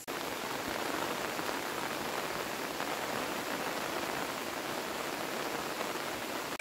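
Steady rain falling, an even hiss that starts and stops abruptly.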